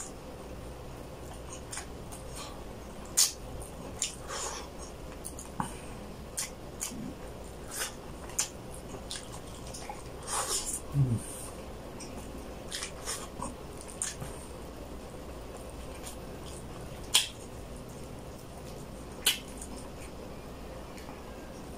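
Close-up eating sounds of a man eating chicken with his hands: scattered wet smacks and clicks of chewing and sucking meat off his fingers, a few of them sharper and louder.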